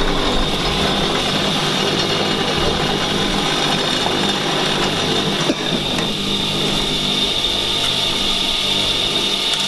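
Electric wet tile saw running steadily while cutting through a tile.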